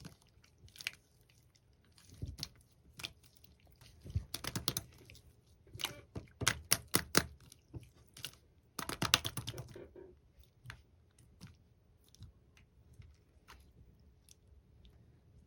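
Bubbly slime being squished by hand, its air bubbles popping in quick crackling runs of clicks, then only sparse single pops after about ten seconds.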